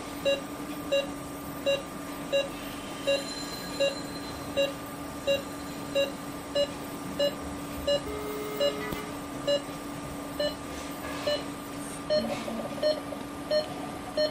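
Patient monitor beeping in time with the heartbeat: short beeps of one pitch, about three every two seconds, which is typical of a pulse oximeter's pulse tone. A steady electrical hum from the endoscopy equipment runs underneath.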